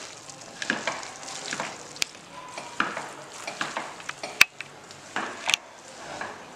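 Bare hands squeezing and mixing raw marinated chicken with fried onions and coriander in a kadai: wet squelching and rustling in irregular bursts, with a few sharp clicks, the loudest about four and a half seconds in.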